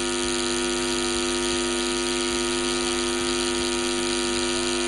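A steady electronic buzz tone at one unchanging pitch with many overtones, held unbroken like a censor bleep laid over speech.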